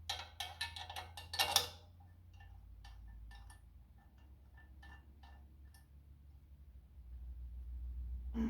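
Metal clinking and ticking as bolts and a wrench are worked in to fit a tractor's cooling fan. There is a quick flurry of clinks in the first couple of seconds, then sparse light ticks, over a steady low hum.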